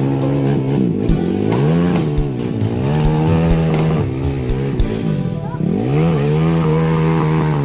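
Off-road vehicle engine revving up and down under load. Its pitch falls and climbs back several times, with scattered short knocks.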